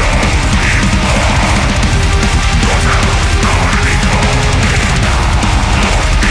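Deathcore music: heavily distorted guitars over fast, dense drumming with rapid kick-drum hits, played loud and without a break.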